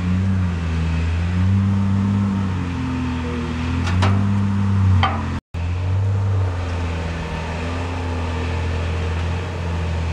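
Steady low mechanical hum like a motor running, its pitch wavering slightly, with two sharp clicks about four and five seconds in; the sound drops out for an instant a little past halfway.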